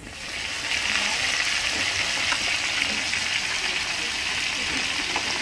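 Oil sizzling steadily as whole fish fry in a wok.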